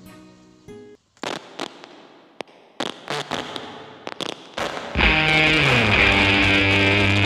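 Background music: a soft plucked-guitar passage, a brief break, then a run of sharp percussive hits. About five seconds in, a much louder, dense band section kicks in.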